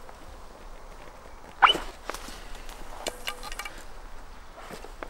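Arrows being pulled out of a foam 3D animal target. About a second and a half in there is a sharp squeak that falls in pitch, followed by light clicks and rattles of the arrow shafts.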